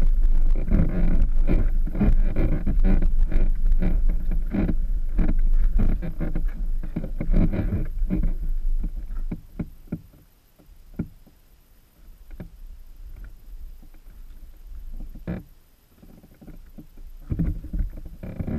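Suzuki GSX-R600's inline-four engine running at low revs, with a strong low rumble and irregular pulsing. About nine seconds in it falls away, leaving a few faint clicks, and it comes back up just before the end.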